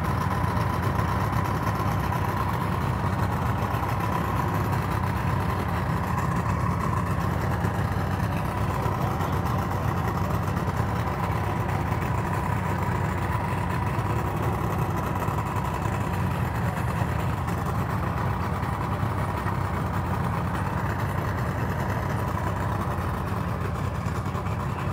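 Outboard boat engines idling steadily, with a faint steady tone above the low running sound.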